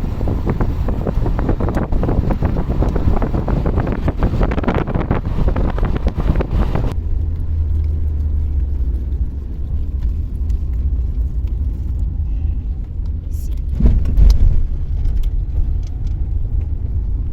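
Motor vehicle on the move: a loud, steady low rumble of engine and road noise, rough with wind for the first seven seconds, then changing suddenly to a smoother hum. A brief louder knock comes near the end.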